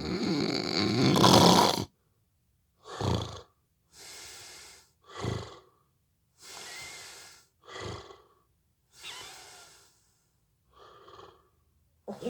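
A man snoring in his sleep: one long, loud snore at the start, then a steady rhythm of short snores on each in-breath, each followed by a softer, longer breath out, about one breath every two and a half seconds.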